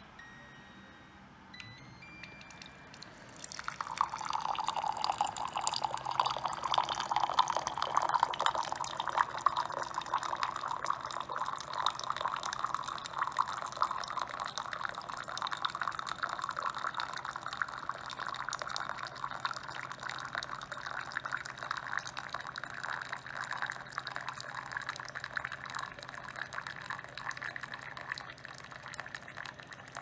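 A short electronic beep from the Xiaomi Viomi instant hot-water dispenser's touch button, then a thin stream of 100 °C water running from its spout into a ceramic mug, beginning a few seconds in. The pouring rises slowly in pitch as the mug fills, over a low steady hum from the dispenser.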